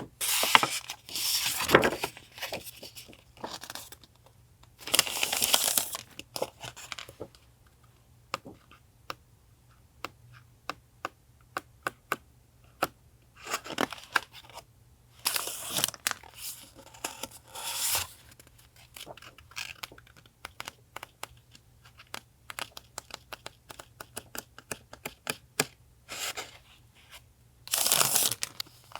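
Paper being torn and crinkled in bursts about a second long, with many small taps and clicks in between, over a faint steady low hum.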